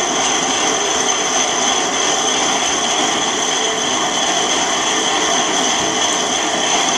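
Country Living grain mill grinding wheat into flour, belt-driven by a pedalled exercise bike: a steady grinding whir with a high whine running through it.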